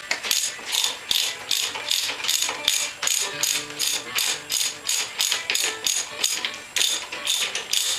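Hand ratchet wrench clicking in quick, even strokes, about four a second, as it works a bolt at the top of a Honda VTX 1300's front fork; the bolt is being loosened so the fork tube can slide out of its clamps.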